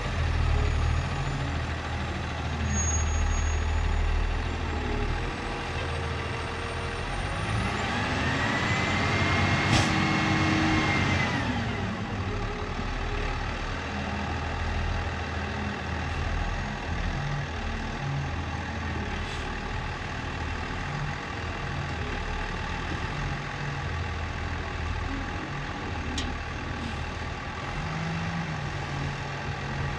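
Heavy vehicle engine running steadily, revving up about eight seconds in and settling back a few seconds later, with one sharp knock in the middle of the rev.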